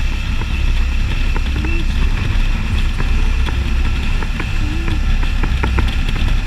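Can-Am Spyder three-wheeled motorcycle under way: a steady low rumble of engine and road noise, with a few light ticks scattered through it.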